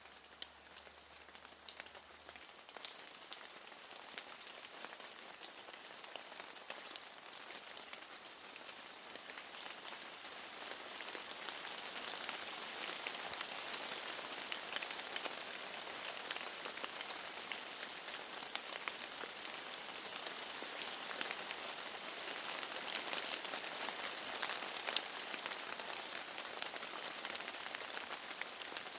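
Rain pattering steadily on a window, a dense hiss of fine drop ticks that grows heavier about ten seconds in.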